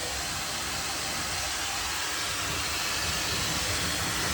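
High-speed hair dryer with a diffuser attached, blowing on its strongest setting: a steady, strong rush of air.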